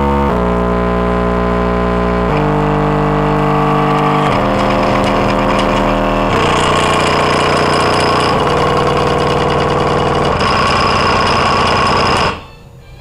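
Bare Pioneer car subwoofer on a floor jack, driven so hard that it smokes, playing heavily distorted, buzzing bass notes that step to a new pitch about every two seconds. The sound drops off sharply near the end.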